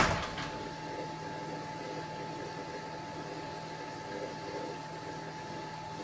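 Steady low hum with a faint steady whine above it, like appliance or room hum. It opens on the fading tail of a short, loud rush of noise.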